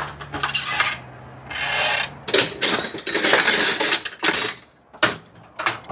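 Metal hand tools clinking and rattling, with ratchet-like clicking, as wrenches and sockets are tried on an odd-sized bolt on a small Honda motorcycle.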